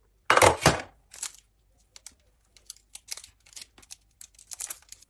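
Handling noise: a loud rustle about half a second in, then a string of short crackles and clicks.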